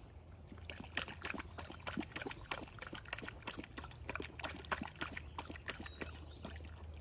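Golden retriever puppy splashing in the water of its tub: a quick, irregular run of small splashes and slaps of water.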